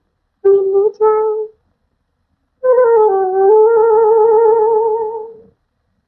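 A woman humming a tune unaccompanied: a short rising phrase, a pause, then one long held note with a steady vibrato that fades out about five and a half seconds in.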